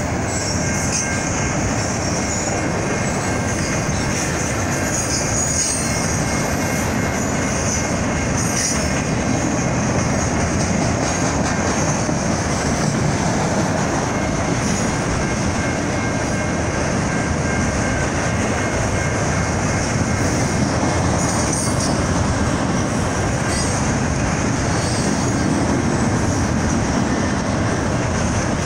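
Train passing close by: a steady, unbroken rumble and clatter of railcar wheels on the rails, with a high squeal from the wheels over it.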